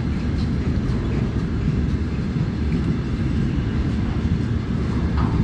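Freight train's container flatcars rolling past, a steady low rumble of wheels on the rails.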